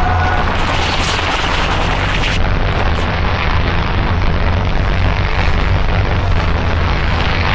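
Power-electronics noise music: a dense, constant wall of distorted noise over a steady low rumble, with a brighter hiss flaring up from about half a second to two and a half seconds in.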